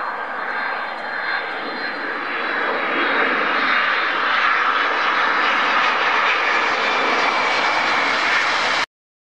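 Twin-engine Boeing 767 jet airliner landing: a steady jet rush with a faint high whine from the engines, growing louder about three seconds in. It cuts off suddenly near the end.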